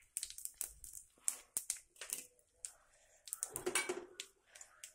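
Tempering spluttering in hot oil in a steel pan: irregular crackles and pops from mustard seeds, chana dal and curry leaves frying, thickest about three and a half seconds in.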